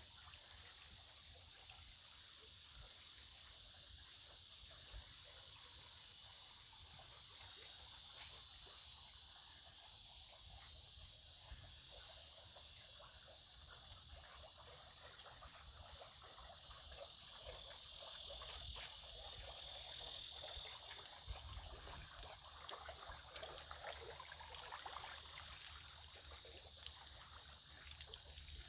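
A steady, high-pitched chorus of insects, such as crickets, drones without a break; about halfway through, a faint, evenly repeating high chirp joins it.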